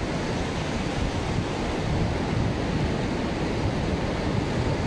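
Ocean surf washing onto a sandy beach in a steady wash of noise, with wind buffeting the microphone.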